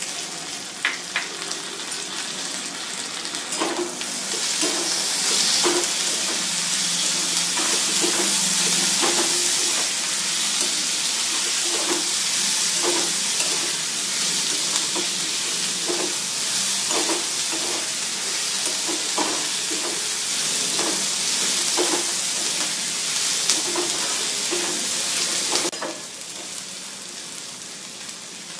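Food frying in a pan with a loud sizzle, stirred with a spatula in many short strokes. The sizzle starts about four seconds in and drops away sharply a few seconds before the end.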